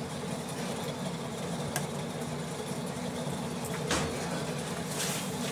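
Steady low mechanical hum, with a sharp click about two seconds in, another near four seconds, and a brief hiss near the end.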